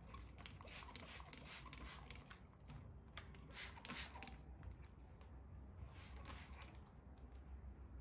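Plastic trigger spray bottle spritzing insecticide onto a houseplant's leaves: a quick run of short hissing sprays in the first half, then a few more about six seconds in.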